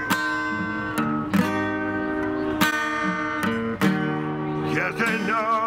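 Steel-string acoustic guitar strummed in slow, ringing chords, a strike every second or so. A man's singing voice with vibrato comes in near the end.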